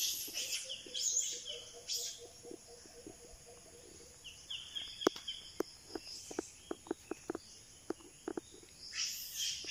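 Tropical forest ambience: a steady high insect drone with short bird chirps over it. In the second half comes a scattered run of light clicks.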